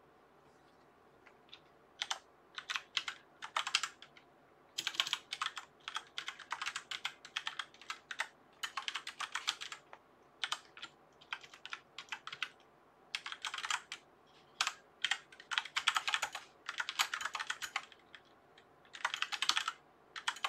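Typing on a computer keyboard: quick runs of keystrokes broken by short pauses, starting about two seconds in.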